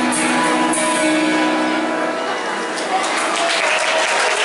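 Music over a stadium's loudspeakers winds down, and from about three seconds in a crowd's cheering and applause swell up.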